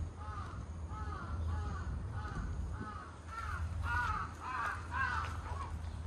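Crows cawing over and over in a quick series, about three short caws a second, louder about two-thirds of the way through.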